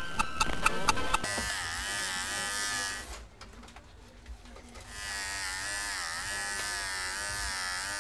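A steady electric buzz with a wavering pitch, broken by a quieter gap of about two seconds in the middle; rapid ticking comes before it in the first second.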